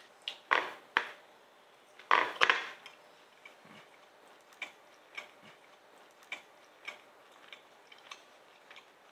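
Metal forks clinking and scraping on ceramic plates as slices of steak are picked up, a few sharp clinks in the first three seconds, then quiet chewing with small irregular mouth clicks.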